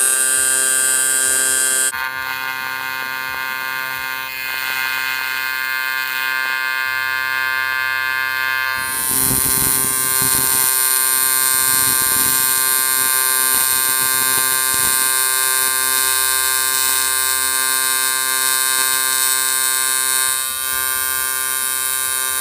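Electric welding arc buzzing steadily while a small steel plate is welded onto a bracket. The buzz shifts abruptly in tone about two seconds in and again about nine seconds in.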